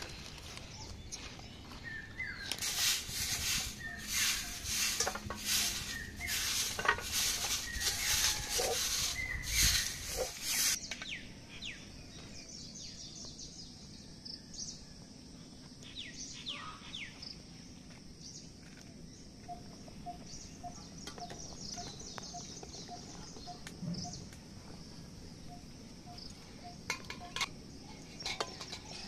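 Crinkling rustles, about two a second, as a bag is handled. Then a quieter stretch with a steady high hiss, birds chirping and a few light clinks of a steel pan.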